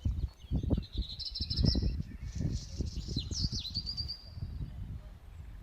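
Small birds chirping and trilling in quick high-pitched series, over irregular low thumps and rumble.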